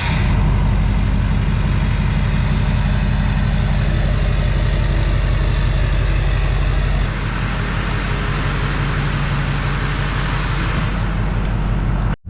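A Duramax 6.6-litre V8 turbo-diesel pickup engine idling just after being fired up. The sound drops a little about seven seconds in.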